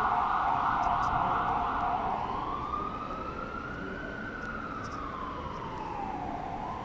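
Emergency vehicle siren sounding, a fast warble for about two seconds that switches to a slow wail, rising and then falling in pitch, growing a little fainter.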